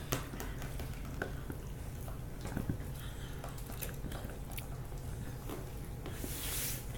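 Dogs gnawing on chew sticks: irregular small clicks and crunches of teeth on the chews, over a steady low hum, with a brief rustling hiss near the end.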